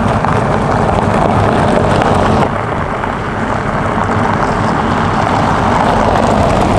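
Mercedes-Benz E-Class All-Terrain driving on a gravel track: steady tyre noise on loose gravel over the low rumble of the engine. It turns a little quieter and duller about two and a half seconds in.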